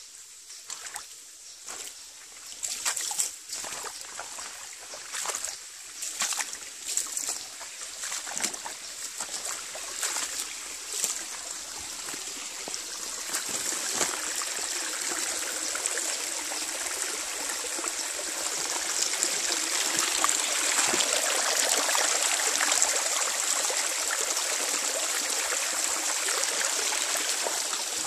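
Small forest stream trickling and splashing over rocks, becoming a steady, louder rush about halfway through. In the first half, irregular crunches and rustles of steps on leaf litter and ground sound over the water.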